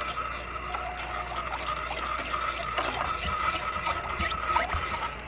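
Water trickling from a wooden bowl into a pot of butter-and-flour roux as gravy, with a metal ladle stirring and scraping in the pot. The water goes in a little at a time so the gravy does not form lumps.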